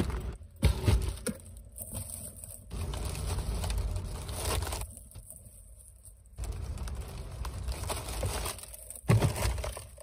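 Plastic shopping bag rustling and crinkling as it is handled, with a loud knock about a second in and another near the end, over low wind rumble on the microphone.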